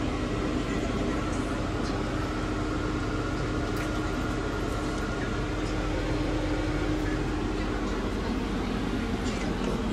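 Steady mechanical hum with a constant low tone, with a few faint clicks.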